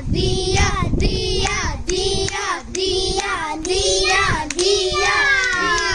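A child's voice singing a melody, holding notes and sliding between them.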